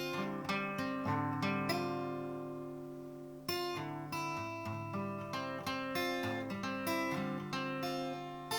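Guitar played freely and improvised, chords and single notes plucked and strummed every half second or so, each ringing out and fading before the next.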